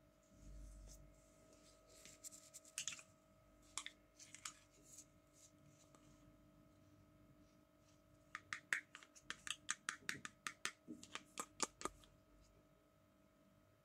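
Hard plastic toy doctor-set pieces handled in gloved hands: scattered clicks and taps, then a quick run of sharp clicks, about four a second, in the last third. A faint steady hum runs underneath.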